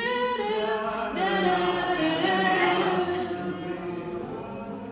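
Voices singing a tune a cappella, without accompaniment, in long held notes; the singing grows quieter near the end.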